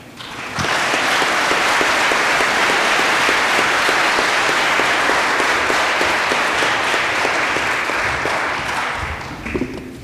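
Audience applauding. It swells in about half a second in, holds steady, and dies away near the end.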